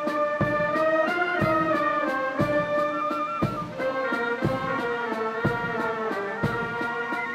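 Brass band playing a slow march: sustained brass chords with changing notes over a drum beat about once a second.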